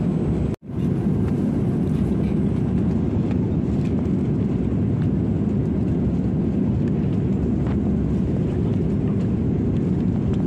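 Steady low rumble of airliner cabin noise in flight, the engine and airflow noise heard inside an Airbus A330-300's passenger cabin. It cuts out for an instant just over half a second in.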